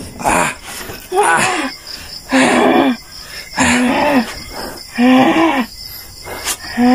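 A person groaning over and over in a rhythmic moan, about six drawn-out cries each a little over a second apart.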